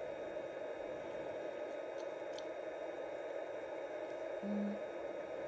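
Steady low hum and hiss of room tone, with two faint ticks a few seconds apart and a brief low hum about four and a half seconds in.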